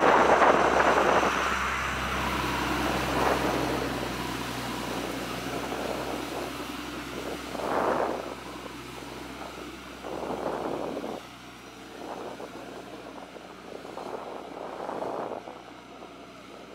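A motor running steadily with a low hum. Rushing noise swells and fades every few seconds, loudest at the start, and the hum drops away about two-thirds of the way through.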